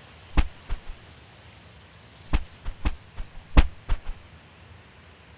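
Animation sound effects: three sharp hits, each followed by two or three lighter bouncing taps, over a steady hiss.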